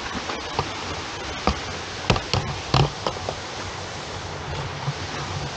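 Boots and hands scuffing and knocking on rock and dry dirt during a scramble down a steep rocky slope, a handful of sharp knocks in the first three seconds. Under them is a steady rushing hiss of falling water.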